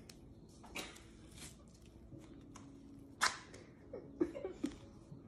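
White athletic tape being pulled off the roll and wrapped around an arm: a few short ripping sounds, the strongest about three seconds in, then a few small clicks and faint voice sounds near the end.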